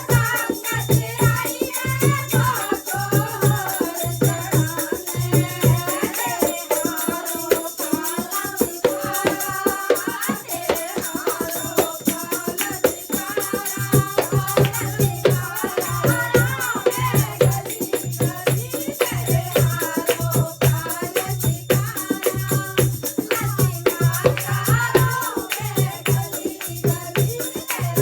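Hindi devotional bhajan: a melody carried over a fast jingling percussion rhythm and a deep, steady drum beat. The drum beat drops out for several seconds in the middle, then returns.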